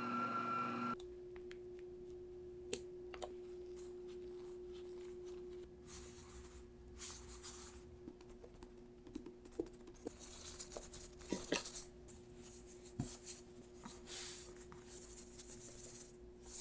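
Scattered light clicks and taps with short rustling, hissing noises, over a faint steady hum; a brief tone cuts off about a second in.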